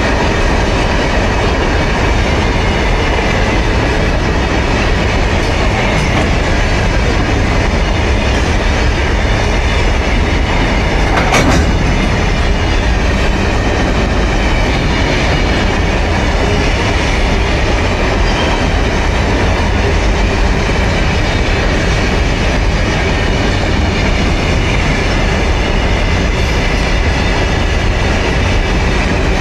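Mauritanian iron ore train running, a loud steady noise of the moving train, with a single sharp knock about eleven seconds in.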